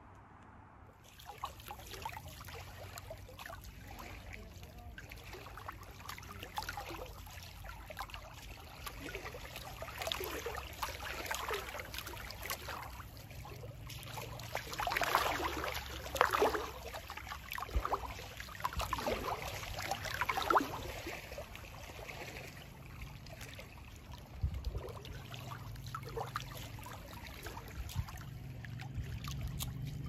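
Small waves lapping and splashing at a lakeshore, an irregular run of soft splashes that grows louder in the middle.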